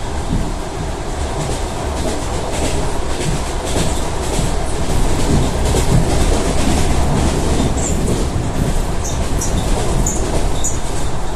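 ED4M electric multiple unit rolling past, its wheels clicking over the rail joints. The sound grows louder a few seconds in. Several brief high wheel squeals come near the end.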